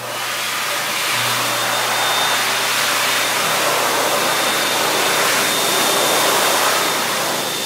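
Wall-mounted high-speed hand dryer blowing hard: a loud, steady rush of air with a thin high whine running through it.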